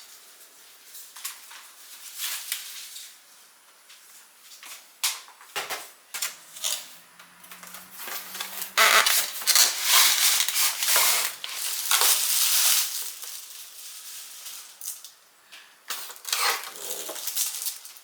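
A new coffee machine being unpacked and handled: a string of clicks and knocks with rustling packaging, busiest and loudest in the middle.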